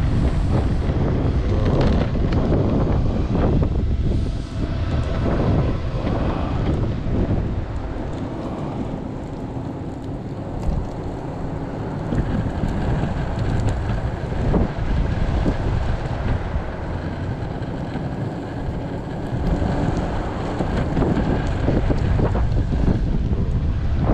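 Strong wind buffeting a GoPro Hero 9's microphone during a fast outdoor ride, a loud uneven rumble that eases for a few seconds near the middle. A faint steady whine runs underneath from about halfway.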